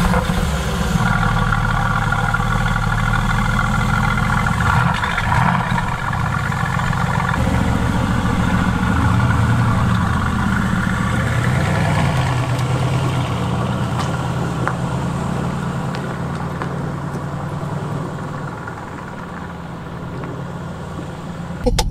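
Mercedes-AMG GT S twin-turbo V8 idling just after start-up, heard from behind at the exhaust. About seven seconds in the note changes as the car moves off, and it then fades as the car drives away.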